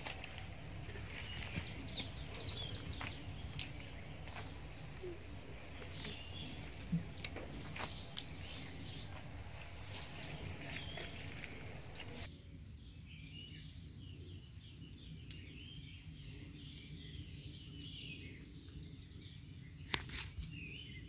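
An insect chirps in a steady, evenly pulsing high trill throughout. Over it, during roughly the first half, dry bean pods and stalks crackle and snap sharply as they are stripped and shelled by hand.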